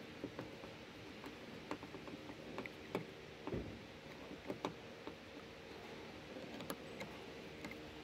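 Scattered light metallic clicks and ticks as a Torx screwdriver works the screws holding a car door's latch and lock actuator. There is a dull bump about three and a half seconds in, over a faint steady hum.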